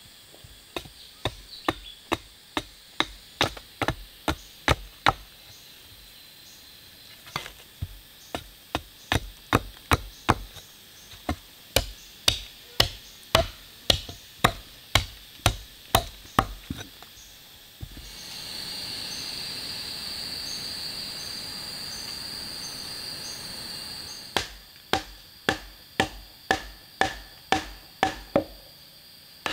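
Wood being chopped with a bladed hand tool: a steady run of sharp strikes, about two a second. The strikes pause briefly after a few seconds, then stop for about six seconds while a steady high-pitched buzz fills the gap, and start again near the end.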